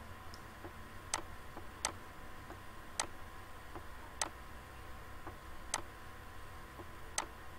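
Sharp, irregularly spaced clicks, roughly one a second, made while handwriting is being drawn on a computer screen, over a faint steady hum.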